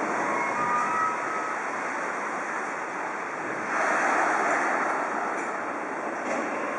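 Subway train standing at an underground platform, its equipment humming steadily under the station's noise, with a louder rush of hissing air about four seconds in.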